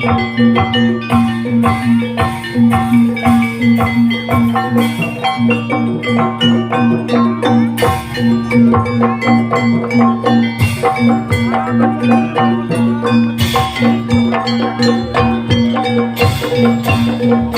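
Live jaranan gamelan music: struck bronze metallophones playing a fast, even stream of repeated notes over drums and a low steady pulse.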